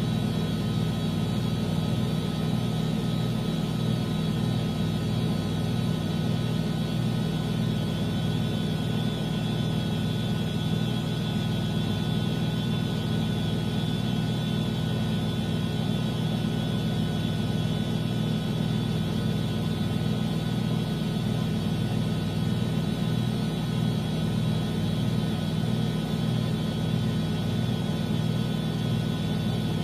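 Miele washing machine running steadily: a constant hum with a steady high whine over it, unchanging throughout.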